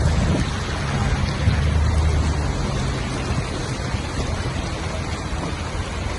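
Steady rushing noise of floodwater and rain, with a low rumble underneath.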